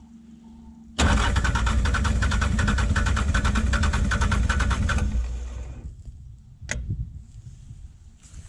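Starter cranking the mini excavator's diesel engine for about four seconds with an even chug of compression pulses, then winding down without the engine catching: air is still in the fuel system after it ran out of fuel. A single sharp click follows.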